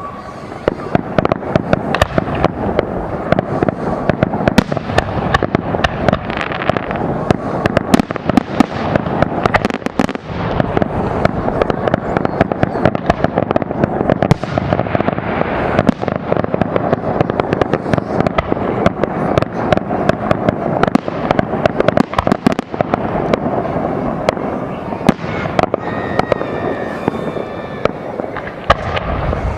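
Fireworks display: a dense, continuous barrage of rapid bangs and crackling with no break.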